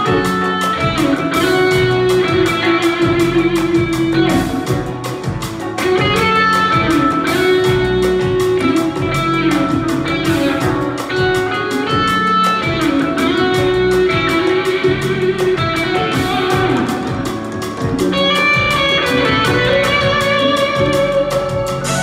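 Live jazz-rock fusion band playing loudly: a Les Paul-style electric guitar picking fast melodic lines over electric bass and drums with quick, even cymbal strokes.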